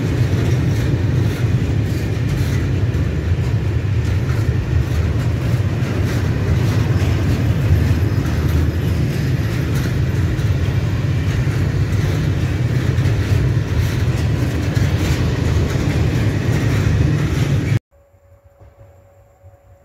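Freight train of open-top gondola wagons rolling past close by: a steady, loud rumble of steel wheels on the rails. Near the end the sound cuts off suddenly, leaving only a faint steady hum.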